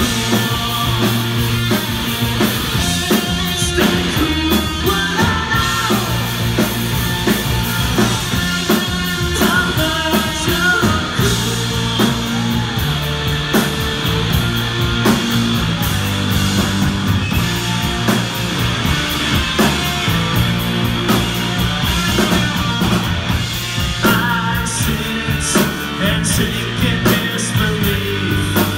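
A live rock band playing loudly: electric guitars and a drum kit, heard from the audience.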